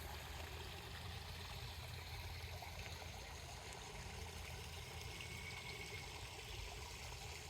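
Faint, steady trickle of running water from a koi pond's water feature, with a low steady hum beneath it.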